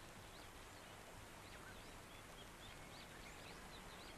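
Faint, scattered chirps of birds over a quiet background hiss, with no one speaking.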